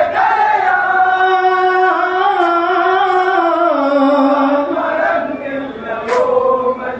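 Singing of a Malayalam Onamkali song: one long held note that wavers slowly, steps down in pitch midway and climbs again near the end. A single sharp click cuts through about six seconds in.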